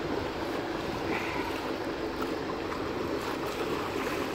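Steady wind and sea noise around a boat on the open ocean, with a faint steady hum underneath.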